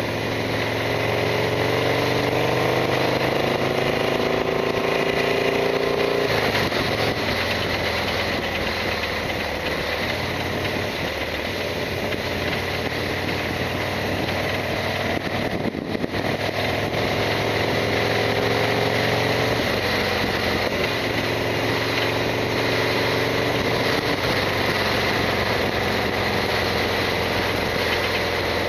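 Harley-Davidson Sportster XL1200R's air-cooled 1200 cc V-twin running under way, its pitch climbing as it pulls, with a sudden drop about six seconds in at a gear change. The pitch then eases down and builds up again.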